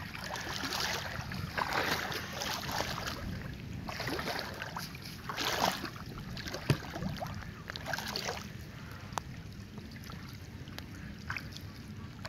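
Shallow water sloshing and splashing as a person wades and works a gill net by hand, in uneven swishes every second or so, softer in the second half, with a few sharp clicks.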